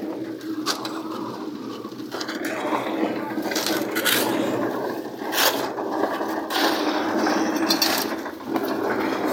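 Steel shovels scraping and scooping through wet concrete and gravel and knocking against wheelbarrows in irregular strokes, over the steady hum of a running drum concrete mixer.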